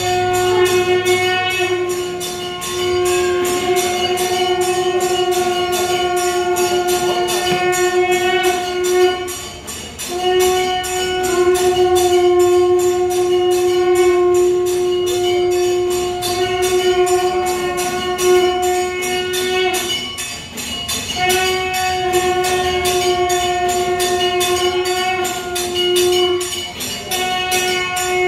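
A long, steady horn-like blown tone at one pitch. It is held for about nine to ten seconds, breaks off, and sounds again, three times over. Under it, rhythmic metallic percussion strikes about three times a second.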